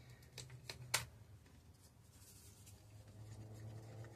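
Quiet handling of a paper cup of glitter resin: a few light clicks in the first second, the sharpest about a second in, then soft scraping as a wooden craft stick stirs the resin in the cup.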